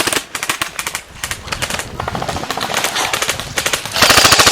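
Airsoft guns firing on full auto: rapid, overlapping strings of shots. The loudest and densest burst comes near the end.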